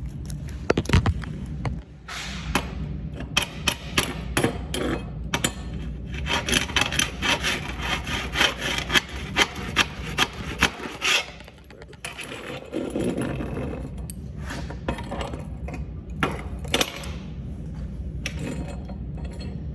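Metal scraping and clicking as steel practice pieces are handled and flipped on a welding table, with a dense run of rapid crackling for several seconds in the middle.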